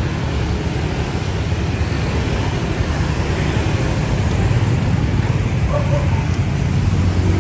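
Steady road traffic noise from motorbikes and cars passing on a busy city street, with a low rumble throughout.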